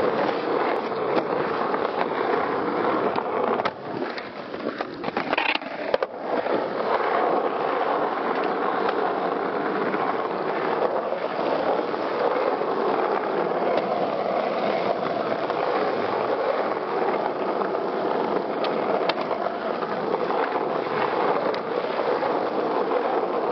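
Skateboard wheels rolling over rough, cracked asphalt: a steady, grinding roll. A few sharp clacks from the board come in the first several seconds.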